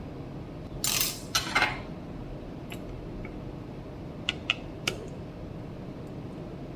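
Small metal repair tools on the phone's frame: two short scrapes about a second in, then a few sharp clicks and taps, as the old battery is worked out.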